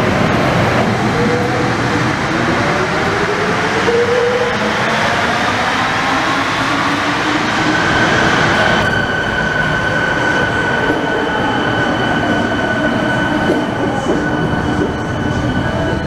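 Rubber-tyred VAL automatic metro train running, its electric drive whining in tones that glide up and down in pitch. About nine seconds in, the sound changes abruptly to a steadier run with a held high whine.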